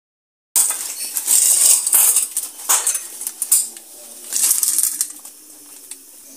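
Paper wrapping crinkling and rustling in irregular bursts as it is pulled open by hand, starting about half a second in and dying down near the end.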